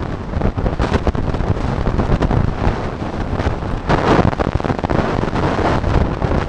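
Heavy wind buffeting the microphone: a loud, rough rushing rumble that surges up and down, loudest about four seconds in.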